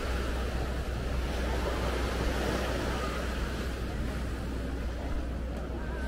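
Ocean surf washing on a beach as a steady rushing noise, with a low wind rumble on the microphone.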